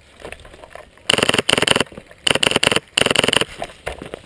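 Airsoft rifle firing three short full-auto bursts of rapid shots, starting about a second in and each lasting about half a second.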